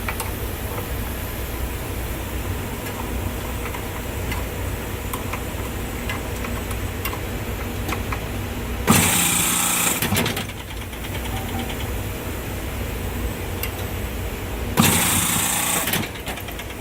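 A 30-ton refrigeration compressor with Discus valves running steadily against its closed suction service valve, its valves leaking by. About nine seconds in and again near the end come two loud rushing bursts, each about a second long.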